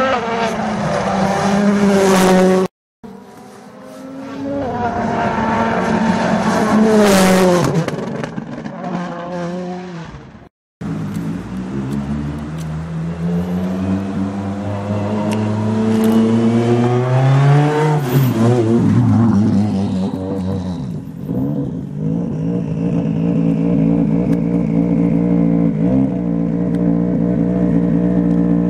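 Ford Fiesta WRC rally car's 1.6-litre turbocharged four-cylinder engine at full throttle, revving up through the gears and falling away as it passes, in three stretches broken by two short silences. From about two-thirds of the way in, the engine runs steadily at idle.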